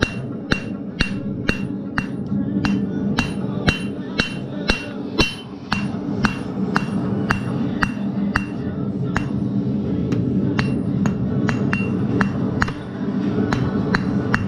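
Blacksmith's hand hammer striking hot mild steel on an anvil at about two blows a second, each with a short ringing note. The smith is drawing out and forming the point of a rotisserie prong's tine.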